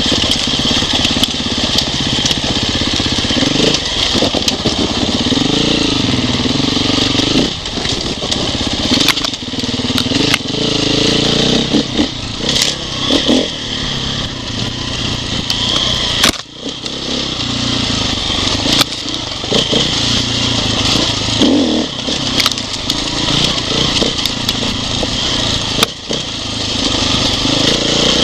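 Off-road motorcycle engine running under load, its pitch rising and falling as the throttle is worked, with scattered knocks and rattles as the bike goes over rough ground.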